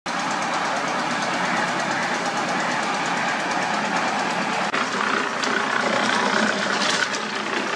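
Cement mixer's engine running steadily, with a brief dropout a little past halfway.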